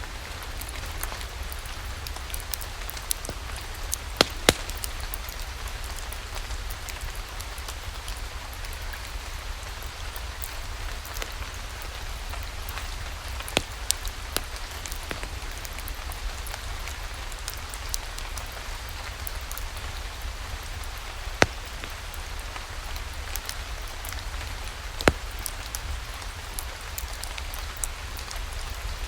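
Steady rain mixed with the crackle of a wood fire in a fireplace. A handful of sharp pops stand out: two close together about four seconds in, then single ones later.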